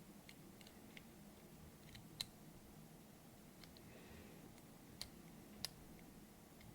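Faint, sparse clicks and ticks of lock picks working inside a doorknob's lock cylinder, a few light ones early, then sharper single clicks about two seconds in and twice around five seconds in.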